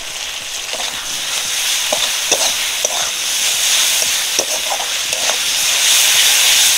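Onions, capsicum and sauce sizzling in hot oil in a karahi while a metal spatula stirs them, knocking and scraping against the pan a few times. The sizzle grows louder as it goes.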